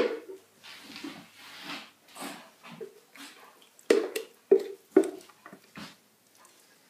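A plastic Blendtec blender jar being knocked and tapped to shake thick blended fudge out into plastic food containers: a sharp knock at the start, a few seconds of soft scraping, then four sharp knocks about half a second apart near the end.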